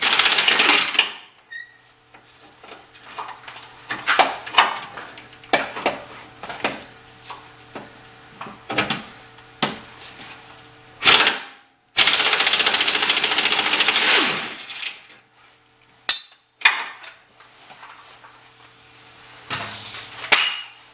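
Hand wrench working loose a steering rack mounting bolt, with scattered sharp metal clicks and knocks of the wrench on the nut. There is a loud burst of noise at the start and a steady loud burst lasting about two and a half seconds a little past the middle.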